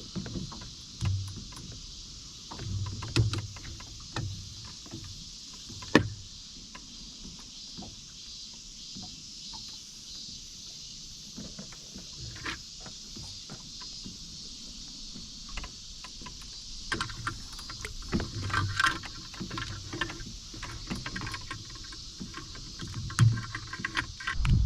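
Scattered knocks and clicks from handling on a small fishing boat, over a steady high hiss. The clicks come closer together in the last third.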